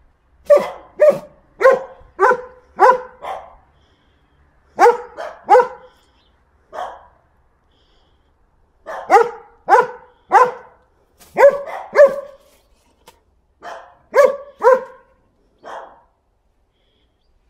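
German Shepherd barking repeatedly, in runs of three to six barks about half a second apart, with short pauses between the runs.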